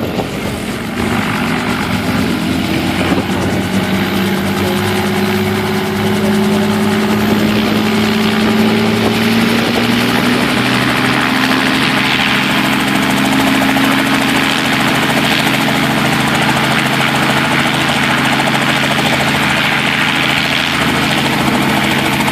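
Helicopter running on the ground with passengers aboard, its engine and rotor spooling up: the pitch rises slowly over the first ten seconds or so, then holds steady as it readies for takeoff.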